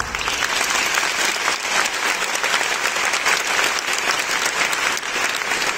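Audience applauding, dense and steady clapping.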